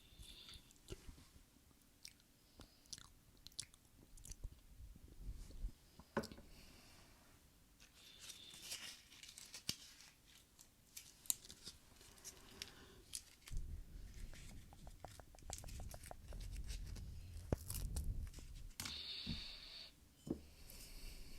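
Close-miked ASMR trigger sounds: irregular sharp clicks and short crackly patches, with a heavier low rumble of handling in the second half.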